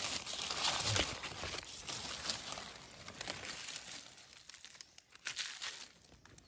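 Dry fallen leaves rustling and crackling as hands and a small knife work through the leaf litter to cut and lift a mushroom. There is a light knock about a second in, and the sound fades over the last few seconds.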